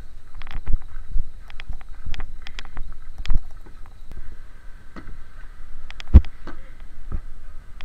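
Irregular clicks, knocks and footsteps of people walking along a street, with a few heavy low thumps of wind or handling on the microphone. Faint steady high tones come in about halfway through.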